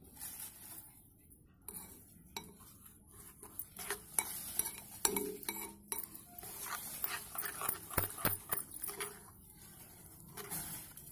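Steel spoon stirring and scooping a thick, wet grey paste in a glass bowl, with irregular clinks and scrapes of metal on glass, busiest in the middle of the stretch.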